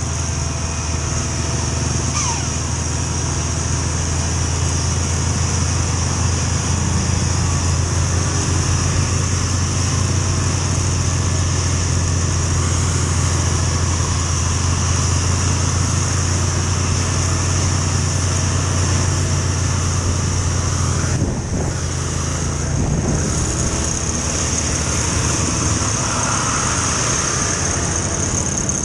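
Steady low engine drone and road noise from a motorcycle riding close behind a Scania 380-engined double-decker bus climbing a hill, the bus engine rumbling loudly. The drone breaks briefly about 21 seconds in, like a gear change.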